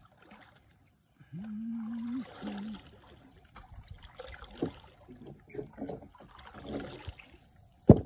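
Wooden paddle strokes in river water from a canoe: splashing and dribbling water with small knocks, and one sharp loud knock near the end. About a second in there is a short low hum in two parts.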